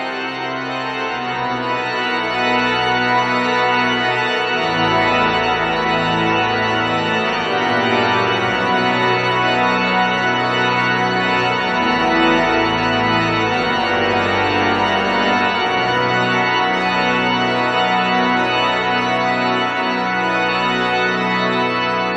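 Pipe organ playing a dense, sustained texture. Long held bass notes enter about four seconds in and shift pitch a few times beneath the busier upper voices.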